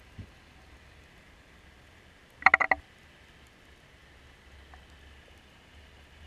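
Steady underwater hiss picked up through a submerged camera. About two and a half seconds in comes a short, loud burst of four or five rapid buzzing pulses, with a faint low downward sweep near the start.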